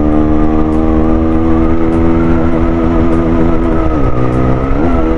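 Motorcycle engine and exhaust running steadily under way, heard from the rider's position with wind rumble on the microphone. The engine note sinks slowly, drops briefly about four seconds in as the throttle eases, then picks up again.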